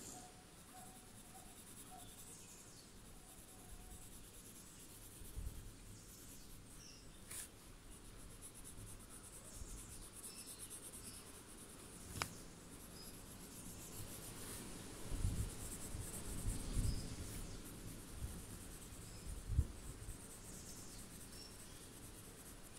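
Coloured pencil shading on a paper tile: a faint, steady scratching of the pencil lead on paper. There is a sharp click about halfway through and a few soft low bumps later on.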